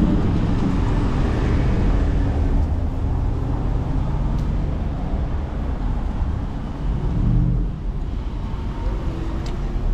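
Street traffic: a steady low rumble of cars driving by, with one swelling briefly about seven seconds in.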